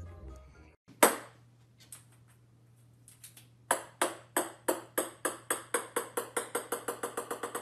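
A series of sharp taps: a single loud one about a second in and a few scattered ones, then a run of evenly spaced taps that speed up and fade slightly.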